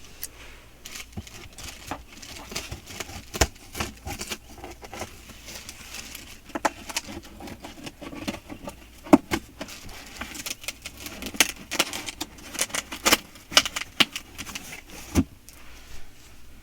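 A cardboard shipping box being opened and its packaging handled: irregular rustling and scraping, with many sharp clicks and taps, busiest in the second half.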